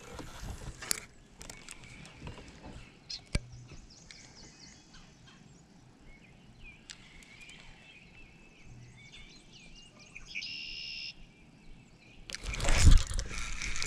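Birds calling and chirping around a quiet lake, with a one-second trilling call about ten seconds in and scattered small clicks from fishing tackle being handled. Near the end, a sudden loud burst of rustling noise with a low thump.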